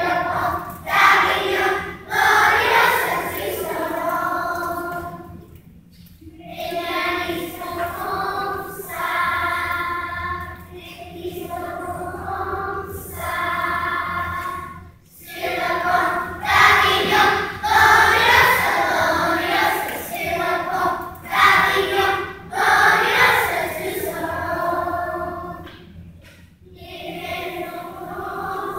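Children's choir singing a song in French, phrase after phrase, with brief pauses between phrases.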